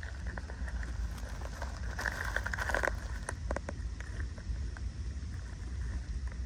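Crackling and rustling of dry leaf litter over a steady low rumble, with a denser burst of crackle about two seconds in.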